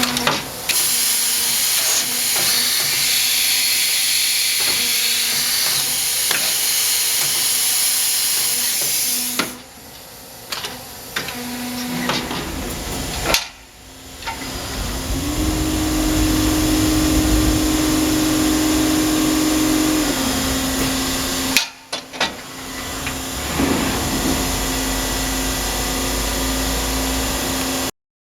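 Hitachi Seiki CA23II CNC lathe running under power: a steady hiss over a motor hum, with scattered clicks. A higher steady tone comes in for several seconds in the middle. The sound breaks off sharply three times and stops near the end.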